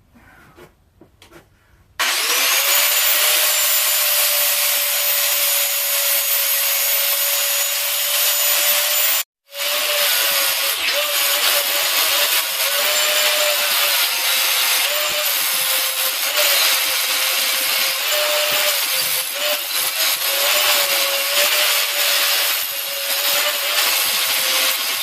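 Electric grinder grinding the steel of a railroad track being made into an anvil. It starts about two seconds in with a steady motor whine, and the pitch dips each time the tool is pressed into the work. It cuts out briefly about nine seconds in, then runs on.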